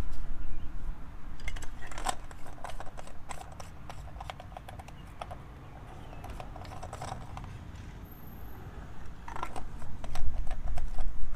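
Irregular light clicks and taps of tools and parts being handled, over a low rumble that is strongest near the start and end.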